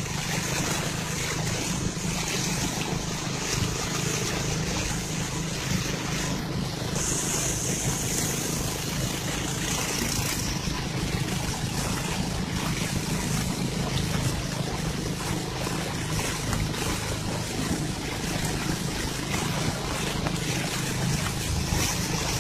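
A motorboat's engine running steadily at speed, with water rushing and splashing along the hull; the spray hiss grows louder for a few seconds partway through.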